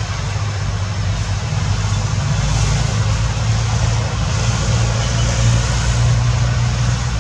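A motor engine running steadily nearby: a low, even hum with a hiss above it, growing slightly louder partway through.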